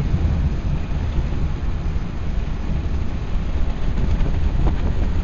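Ford Model A's four-cylinder engine running steadily at road speed, a dense low rumble mixed with wind and road noise heard from the car.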